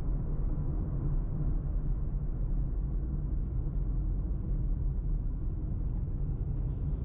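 Steady low rumble of a car driving along the road: engine and tyre noise heard from inside the cabin.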